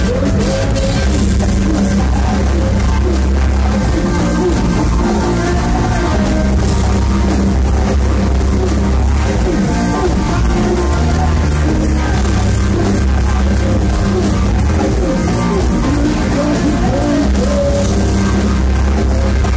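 Go-go band playing live: drum kit, congas and electric guitar over a heavy, steady low end, with a voice on the microphone.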